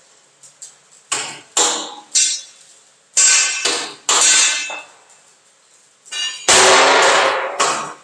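Ringing metal-on-metal clanks of a tool striking steel: a run of single strikes, a pause, then a longer, louder clatter and one last strike near the end.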